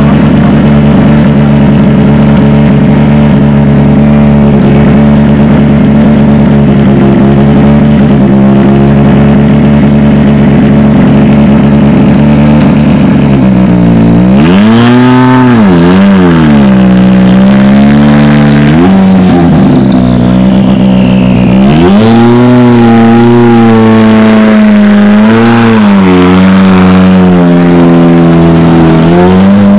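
Hyundai i20 R5 rally car's 1.6-litre turbocharged four-cylinder engine idling steadily, then blipped through a series of quick revs from about halfway, with a falling whistle at the end of the revving. It then settles back to idle, with a couple of small blips near the end.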